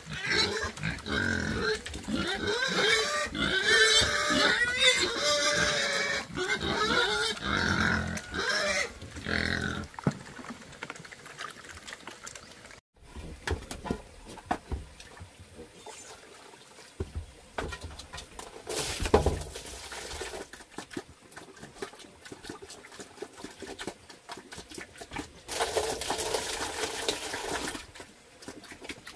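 A group of young pigs squealing and grunting as they crowd a feeding tray, loud for the first ten seconds or so. After that they go quieter, with scattered clicks and two short rushing noises, one in the middle and one near the end.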